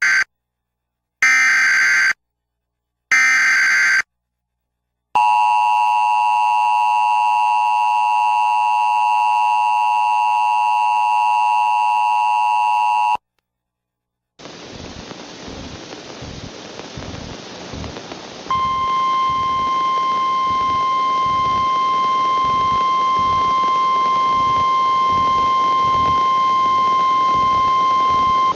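Emergency Alert System tones cutting into a TV broadcast for a tornado warning: three short bursts of screeching digital data (the SAME header), then about eight seconds of the harsh two-tone EAS attention signal. After a brief silence comes a hiss of relayed radio static, and partway through, a steady single-pitched weather-radio alert tone sounds over it.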